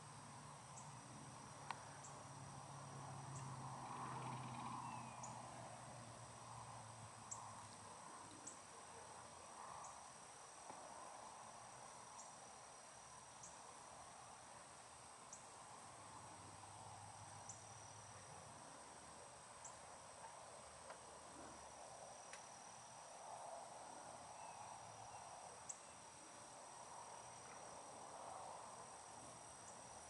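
Faint, steady high-pitched trilling of crickets, with short chirps scattered through it over a soft background hiss.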